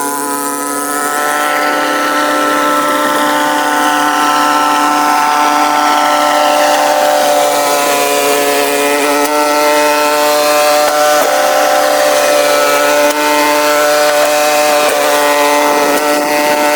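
Snowblower engine running steadily, played back sped up so that it sounds high-pitched.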